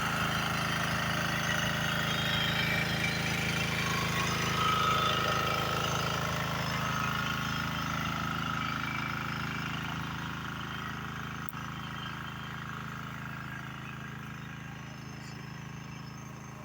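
A small engine running steadily, slowly growing fainter.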